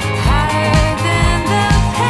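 Pop song with a steady beat and a melodic line that glides in pitch, playing as background music.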